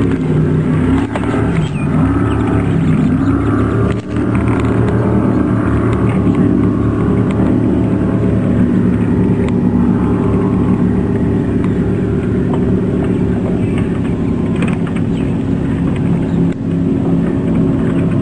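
A motor running steadily, its pitch wavering over the first few seconds and then holding fairly even.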